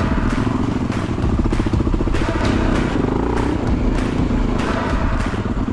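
Enduro motorcycle engine running under way, its revs rising briefly about halfway through, with repeated knocks and clatter.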